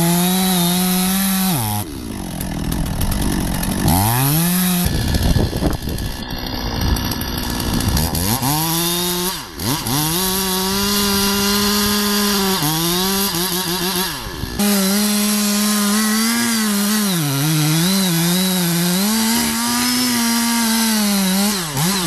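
Two-stroke chainsaw running at full throttle, sawing into a thick tree trunk. Its pitch dips and wavers as the chain bites, and the engine falls back and revs up again a few times: about two seconds in, around nine seconds in, and near the end.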